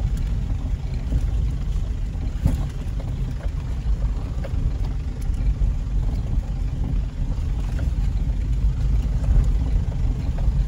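Road and engine noise heard inside a car driving over a rough, broken, unpaved mountain road: a steady low rumble with a few light knocks.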